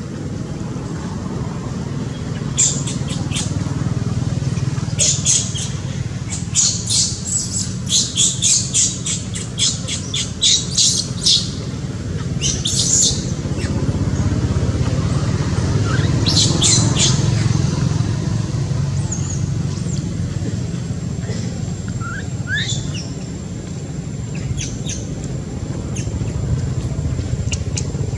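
A run of short, high-pitched calls and squeaks, coming in quick clusters, with a few more scattered near the end. A steady low rumble runs beneath them.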